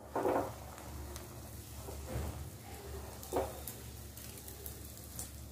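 Faint sizzling of ghee and butter in a frying pan as a burger bun toasts, with a few soft knocks.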